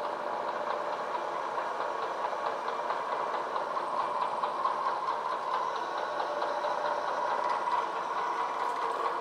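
Bridgeport vertical milling machine running, its end mill roughing a locomotive cradle casting under hand feed: a steady cutting noise with a thin squeal that grows louder through the middle of the cut as the end mill takes more material.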